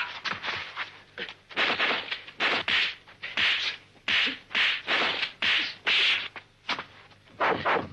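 Kung fu film fight sound effects: a quick run of swishing blows and sharp whacks, about two a second, as punches and kicks land.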